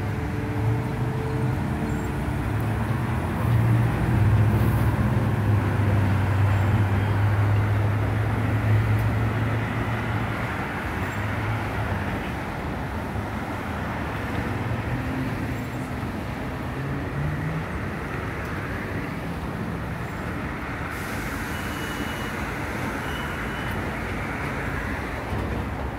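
City street traffic: a large vehicle's engine running close by, loudest in the first half, over steady road noise from passing cars. A little past the middle, an engine pitch rises briefly as a vehicle pulls away.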